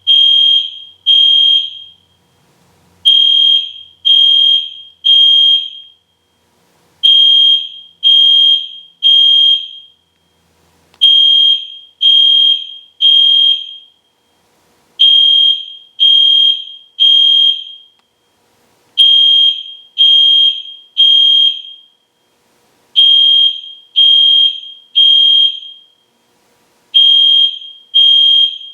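EST Genesis fire alarm horn sounding loudly in the temporal-3 evacuation pattern: three high-pitched beeps, then a pause, repeating every four seconds.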